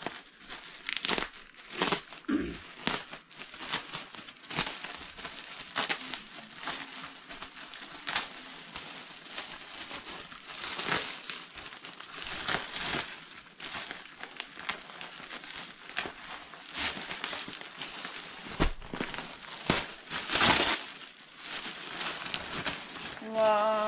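Metallic foil gift wrap crinkling and tearing as a large package is unwrapped by hand, with a plastic-wrapped cushion pulled out of it: irregular rustles and crackles throughout, loudest about twenty seconds in.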